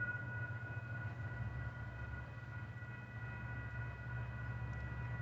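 Freight train led by GE Dash 8-40BW diesel locomotives passing a grade crossing: a low steady rumble, with a faint steady high-pitched ringing tone over it.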